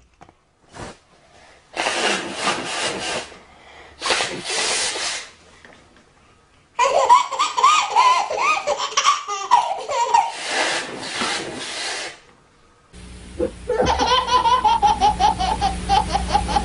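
Two loud, noisy blows like an adult blowing their nose, after which a baby bursts into repeated belly laughs. Near the end another baby laughs in rapid pulses over a steady background hum.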